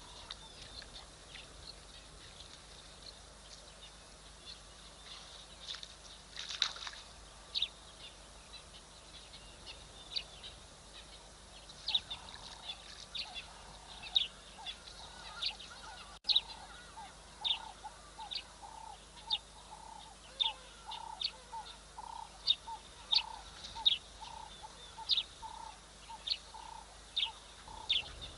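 Short, high chirping calls repeated roughly once a second, many with a lower note paired to them, over faint outdoor ambience, with one louder, rougher call about six seconds in.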